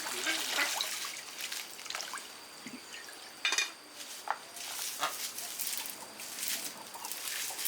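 Water trickling and dripping, with scattered light clicks and a sharper clatter about three and a half seconds in.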